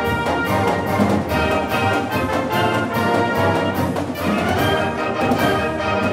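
Marching band music: brass playing a melody over a steady drum beat.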